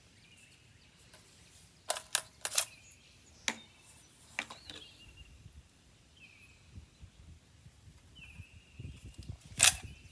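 Sharp metallic clicks from handling an AR-style rifle and its magazine while clearing a round that failed to feed: a quick cluster of four clicks about two seconds in, two more spaced out after it, and a louder click near the end.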